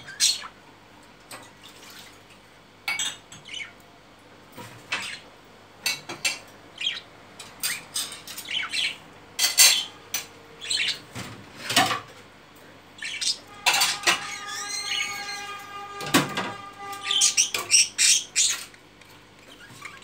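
A pair of budgerigars making short, sharp chirps and clicks at irregular intervals, with a longer warbling chatter from about 14 to 16 seconds in.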